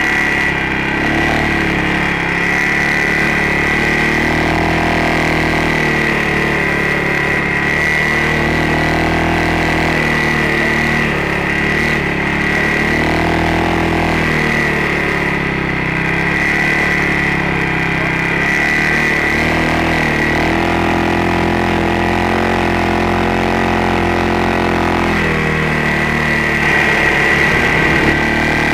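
ATV engine running along a trail, its pitch rising and falling again and again with the throttle, over a steady high whine. A brief knocking rattle comes near the end.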